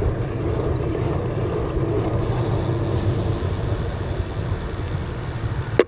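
Steady riding noise from a bicycle underway: wind on the microphone and tyres rolling on the road, with one sharp click near the end.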